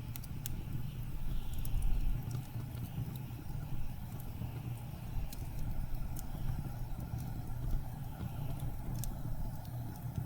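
Blizzard wind rumbling low with soft, rising-and-falling howls, over a wood fire crackling with scattered sharp pops.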